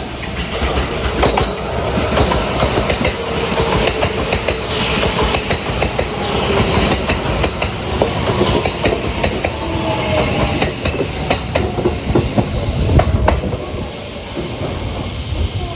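Kintetsu 80000 series 'Hinotori' electric express train moving past, its wheels clicking over rail joints under steady running noise, with a faint motor whine. The noise drops off sharply near the end as the last car goes by.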